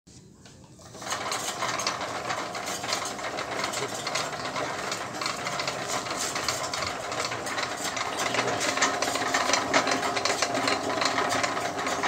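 Washing-machine motor switched on about a second in, driving a vertical pellet mill through a V-belt and large pulley. It runs steadily with constant rattling clicks.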